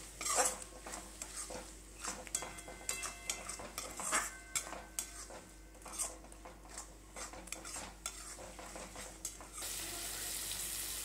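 Metal spatula scraping and tapping around a metal wok, stirring a thick onion-tomato spice paste that sizzles as it fries down. Near the end the sizzling becomes a steady hiss.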